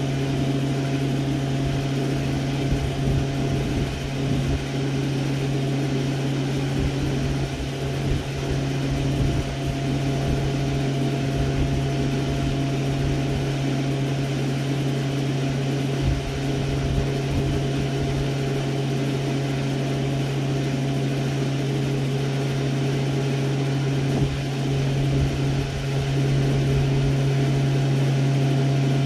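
Steady, constant-pitch low mechanical hum of an engine or machine running at idle.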